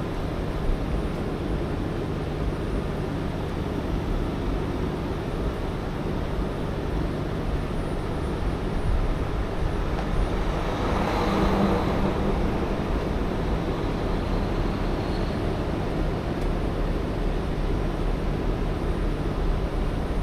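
A heavy truck's diesel engine running steadily in the background, with a passing vehicle swelling up and fading about halfway through.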